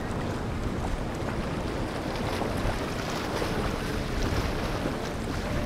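Wind buffeting the microphone over a steady wash of water and boat motor noise.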